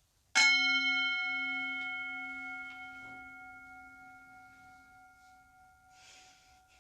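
A bell struck once, ringing with several clear tones that fade slowly over about five seconds.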